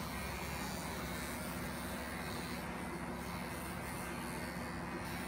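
Electric animal clippers running with a steady buzzing hum while shearing angora wool from a rabbit's belly and inner leg.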